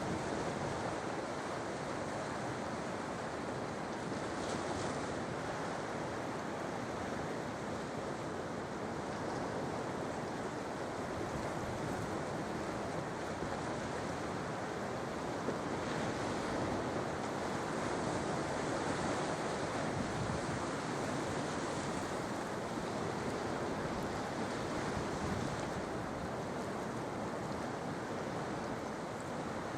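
Sea waves washing onto the shore: a continuous rush of surf that swells gently now and then, with no single crash standing out.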